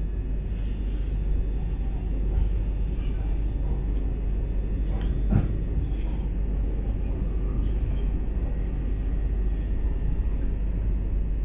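Cabin noise inside a C2C Class 357 Electrostar electric multiple unit running at speed: a steady low rumble, with one sharp knock about five seconds in.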